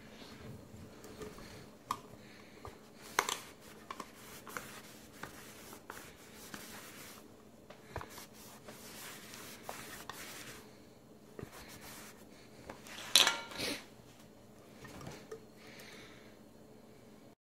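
Handling of an anodized aluminium nonstick camping pan and its kit pieces: light rubbing and scattered small clinks and knocks, the loudest knock about three-quarters of the way through.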